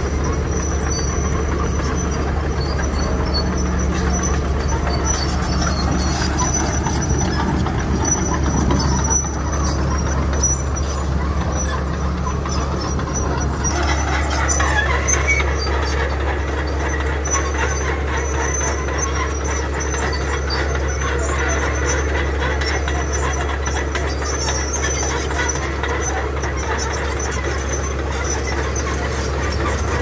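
Komatsu crawler bulldozer at work pushing and spreading gravel: its diesel engine runs under load as a steady low drone, mixed with the rumble of tracks and moving stone.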